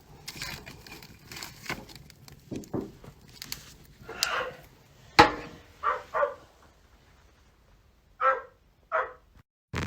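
A dog barking: several short barks with pauses between them, after a few seconds of faint shuffling.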